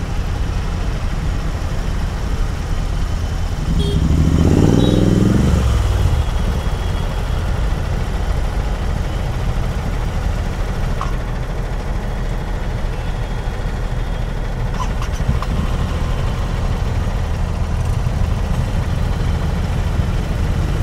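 Royal Enfield Continental GT 650's 648 cc parallel-twin, running a Code 6 stage tune, idling with a steady low throb at walking pace in stop-go traffic. About four seconds in, a short rev rises and falls.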